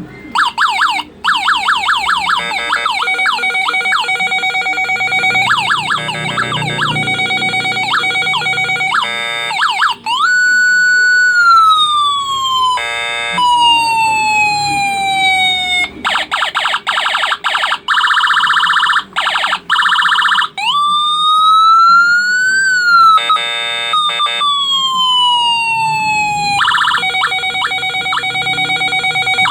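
Electronic siren tones from an AVR microcontroller-driven siren playing through a speaker, cycling through patterns. It starts with a fast warbling yelp, then gives short bursts of rapid stepped beeps and slow falling wails, and ends with a steady buzzing tone and a slow rise-and-fall wail.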